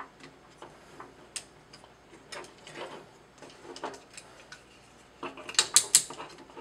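Plastic action figure's joints clicking as its limbs are moved by hand into a pose: scattered light clicks, with a burst of louder clicks near the end.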